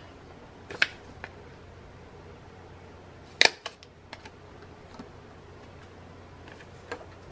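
Hand-held hole punch snapping shut through a paper tag: one sharp click about three and a half seconds in, with a couple of lighter clicks right after and a few small handling clicks earlier.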